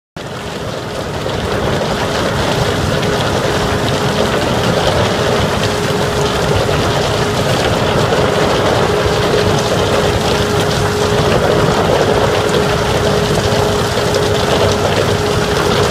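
Dense, steady industrial machinery noise with a constant hum running through it. It starts suddenly and builds over the first couple of seconds.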